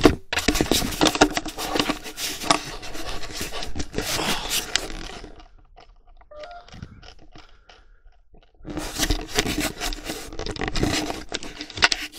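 Close scraping and rustling handling noise, full of small knocks, as a handheld camera is moved about. It comes in two long stretches with a quieter, patchier gap in the middle.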